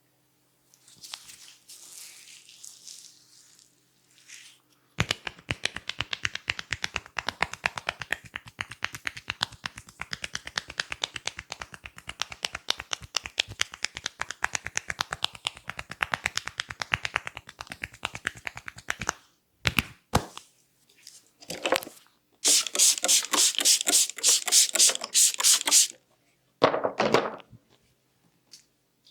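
Rapid percussive massage strikes, several a second, in a long fast run, then a few single strikes and a second shorter burst of fast tapping. The run is preceded by a brief soft rubbing hiss.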